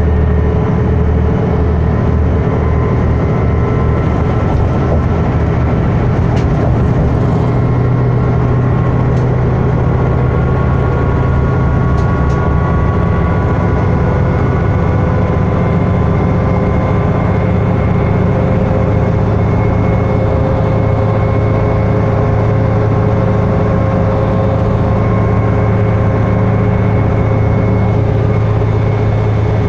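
Interior sound of an articulated diesel bus cruising steadily at freeway speed: the Cummins ISL9 inline-six diesel and Allison automatic driveline make a steady low drone, with several faint whining tones above it that drift slowly in pitch, over road noise.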